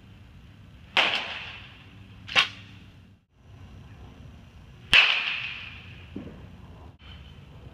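Baseball bat striking baseballs in a batting cage: sharp cracks about a second in and about five seconds in, each ringing briefly, with a shorter crack between them and a fainter knock near the end.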